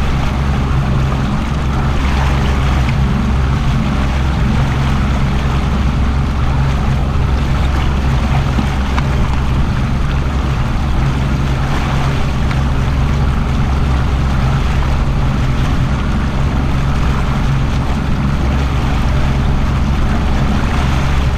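Boat's outboard motor running steadily at trolling speed, a low drone, with wind on the microphone and water noise around the hull.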